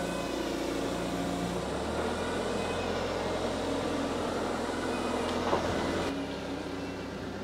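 Electric woodworking saw running steadily while sawing timber lengthwise, its motor drone getting heavier about two seconds in and lightening suddenly about six seconds in.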